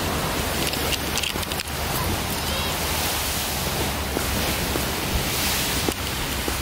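A steady rushing noise of wind and surf, with a few light footsteps on a concrete path in the second half.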